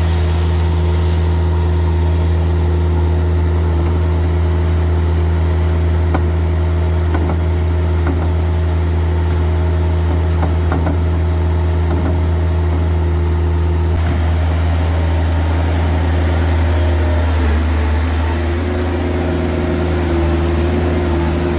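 Vehicle engine idling steadily with a deep, even hum, a few faint knocks over the top; near the end the note dips briefly and then settles again.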